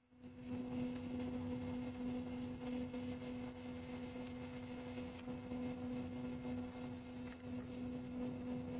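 A steady electrical hum: one low tone with a fainter tone an octave above it. A few faint clicks come and go over it as the wiring and terminals are handled.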